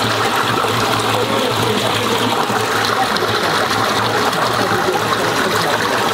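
Water churning and rushing in a flooded concrete shaft as it drains through a freshly unblocked outlet, a steady sound with a low hum underneath.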